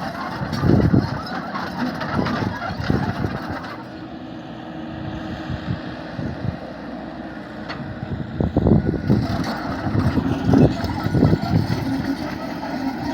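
Komatsu excavator's diesel engine running as the machine works, with repeated heavy, low surges about 1, 2 and 3 seconds in and again later. Between the surges there is a quieter, steadier stretch.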